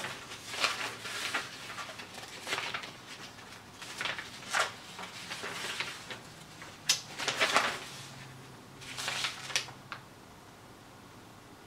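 Large printed paper instruction sheets rustling and crinkling as they are turned over and folded, in irregular rustles that stop about ten seconds in.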